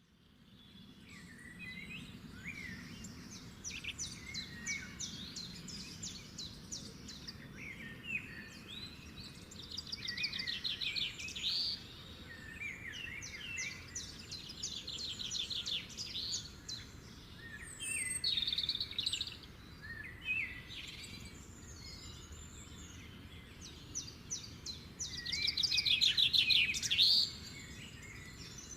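Several songbirds chirping and singing, with repeated fast trills and short chirps over a faint steady background hiss. The loudest trill comes near the end.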